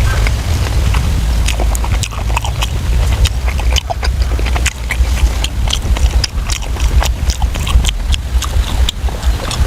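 Close-miked wet chewing and lip-smacking of soft braised pork intestines, many small irregular smacks and squelches, over a steady low rumble.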